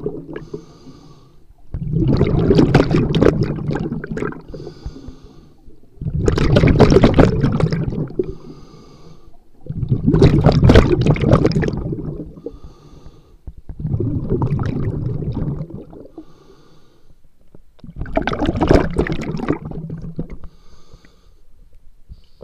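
Scuba diver breathing underwater through a regulator: five loud bubbling exhalations about every four seconds, each followed by a quieter hissing inhalation through the demand valve.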